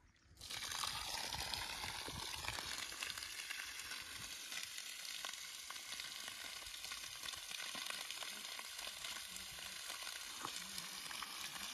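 Water gushing steadily from the discharge pipe of a newly drilled well, driven by the submersible pump set at 56 metres. It starts suddenly about half a second in.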